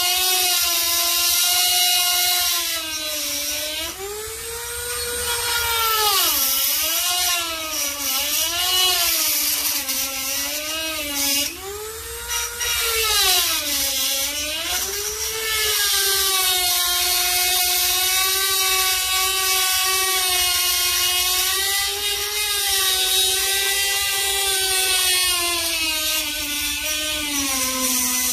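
Handheld high-speed rotary tool cutting into the car's body panel at the door edge, giving a continuous whine. The pitch sags and recovers several times in the first half as the bit loads up and frees, then holds steady, sagging again near the end.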